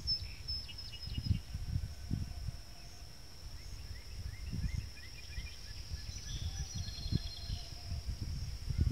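Several wild songbirds chirping and trilling in short bursts over a steady high-pitched insect drone, with irregular low rumbles of wind on the microphone.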